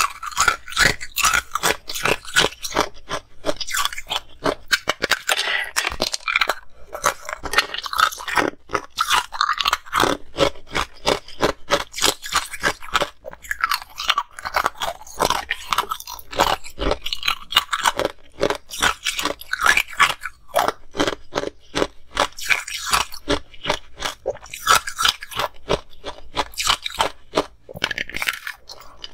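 Close-miked ice eating: hard ice blocks cracking and crunching between the teeth and being chewed, a rapid run of sharp crunches with short pauses between bites.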